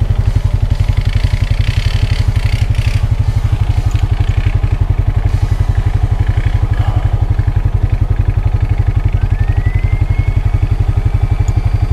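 Vehicle engine idling close by, a steady low thrum of rapid, even firing pulses that holds one pace throughout. There is some rattling in the first few seconds.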